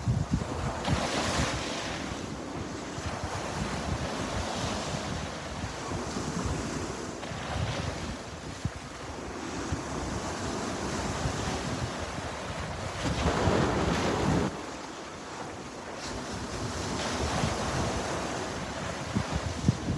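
Sea waves breaking and washing on the shore, with wind buffeting the microphone. One louder wave surges about two-thirds of the way through and drops away suddenly.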